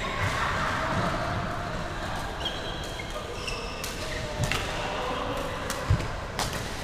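Badminton rally: rackets striking the shuttlecock with several sharp hits, short squeaks of court shoes, and a heavy thud of a footfall near the end, the loudest sound. All of it echoes in a large sports hall.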